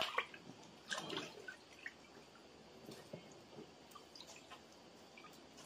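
Water splashing and dripping as hands sort and rinse a basin full of small fish, loudest at the start and about a second in, followed by scattered faint clicks and snips of scissors cutting the fish.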